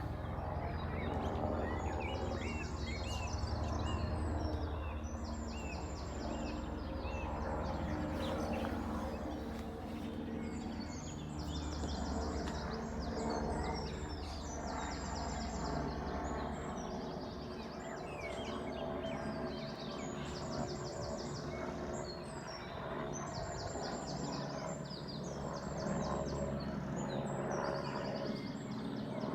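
Distant helicopter, a low rotor thrum with a fast, even chop, under birds chirping repeatedly.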